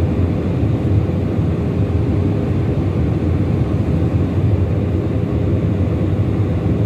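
Jet airliner cabin noise in flight: a steady low roar of the engines and rushing air, heard from a window seat over the wing, with a faint steady hum on top.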